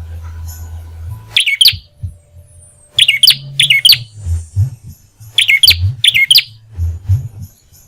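A prinia (prenjak) giving short, sharp, high chirping calls, five brief bursts in two pairs and a single, over a steady low rumble.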